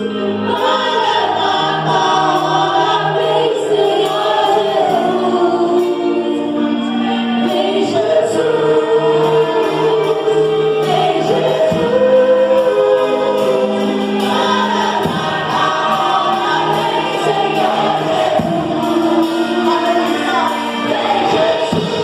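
Gospel worship music: several voices singing together as a choir over a steady band accompaniment.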